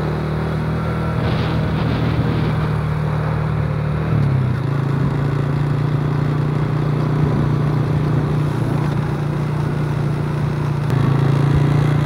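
Motorcycle engine running at a steady road speed while riding. The engine note dips briefly and settles again about four seconds in.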